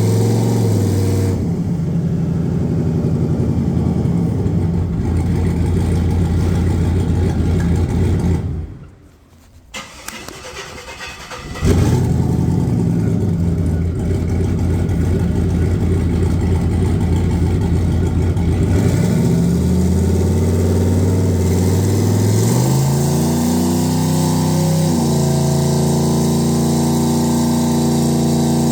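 Turbocharged 2.5-litre engine with a VS Racing 78/75 billet turbo running at a steady idle, its crossover-pipe exhaust leak now repaired. About eight seconds in it dies away and fires again about three seconds later. Later the revs rise in steps to a higher, held speed.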